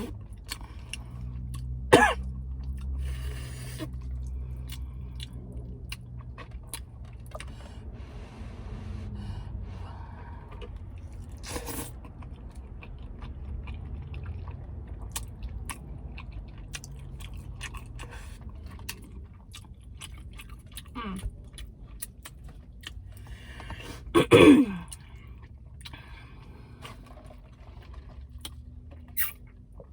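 Close-miked eating sounds: a person chewing spaghetti, with wet mouth clicks and smacks, over a low steady hum. A sharp smack comes about two seconds in, and near the end a brief loud voiced sound drops in pitch.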